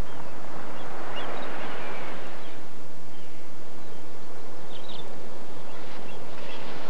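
Ocean surf washing onto a beach, swelling about a second in and again near the end, with a few short bird chirps.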